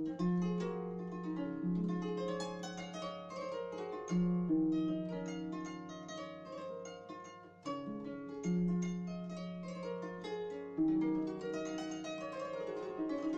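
Background music: a gentle plucked-string melody, harp-like, over sustained low notes.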